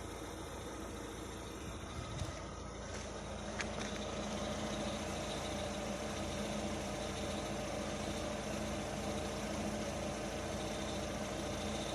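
Lada Vesta idling with the clutch pedal up, a steady whistle from the clutch release bearing running over the engine hum. It gets louder about four seconds in and then holds steady.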